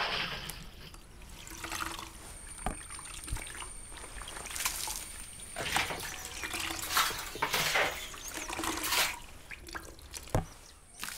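Water splashing and sloshing inside a plastic water tank as it is scrubbed and rinsed with water from a bucket, in a string of irregular splashes. There are two sharp knocks, one early and one near the end.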